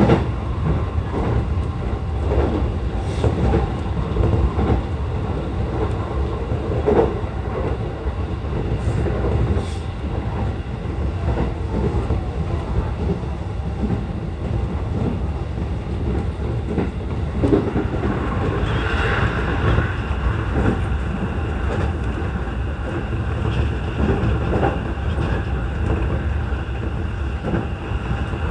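E233 series 0 electric train running along the line, heard from inside the car: a steady low rumble of wheels on rail. Occasional clicks from rail joints come through it.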